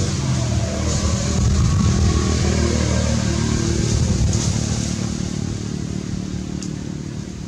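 A motor vehicle engine running as it passes, a low hum that grows louder and then fades toward the end.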